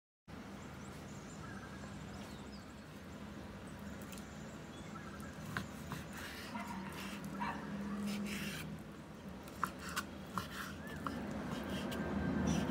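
Chef's knife cutting raw chicken breast on a bamboo cutting board, with a few sharp taps of the blade on the board about ten seconds in, over a steady low hum and some short high squeaks.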